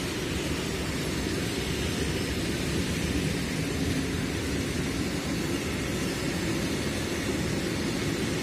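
Loaded coal gondola wagons of a freight train rolling past on the rails, a steady low rumble of wheels on track with a hiss above it.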